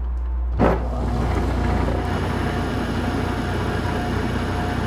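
Small bench lathe, as used for watchmaking, switched on. A sudden thump comes about half a second in, then the machine runs with a steady hiss and a faint hum.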